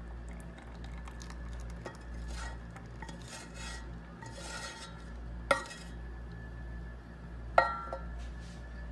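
Wooden spoon scraping thick sugar wax out of a stainless steel saucepan into a glass bowl, with two sharp clinks of the cookware about halfway and near the end, the second ringing briefly.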